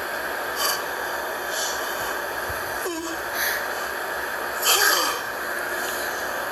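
Several short, sharp breaths through the nose over a steady hiss, with one brief falling vocal sound about three seconds in.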